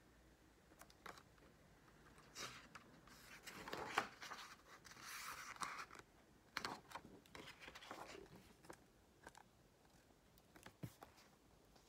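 Paper pages of a picture book being flipped and handled: soft rustling and light knocks. It comes in uneven bursts, busiest from about two to nine seconds in, and is quiet at the start and end.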